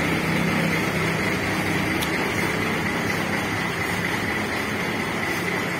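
Parked intercity coach bus's diesel engine idling steadily, with a constant high whine above the low hum. The bus has a 'ngorok' (growling) exhaust.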